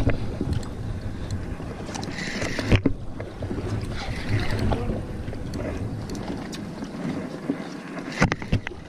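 Wind buffeting the microphone over water sloshing against the side of a small fishing craft, with a few sharp knocks, one about three seconds in and a couple near the end.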